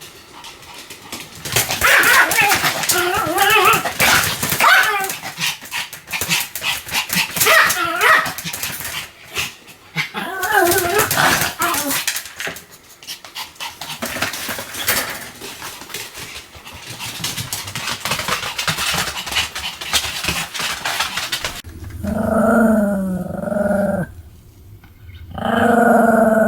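Pomeranian barking and growling in a fast, almost unbroken run of sharp yaps with rough growls between them. Near the end the sound changes to two drawn-out, falling pitched calls over a low hum.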